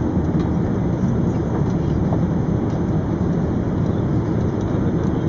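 Steady cabin noise inside an Airbus A380 in flight: an even, low rush of airflow and distant engines.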